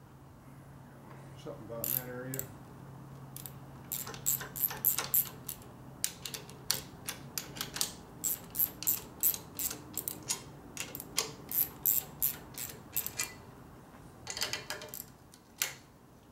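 Sharp metallic clicks and clinks, about two a second, from hand tools and hardware being worked on a motorcycle's handlebar riser mounting, with a quicker burst of clicks near the end.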